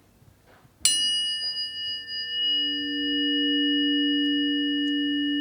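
Planetary tuning fork struck once about a second in: a bright metallic ping whose high overtones fade, leaving a steady low pure hum that keeps ringing.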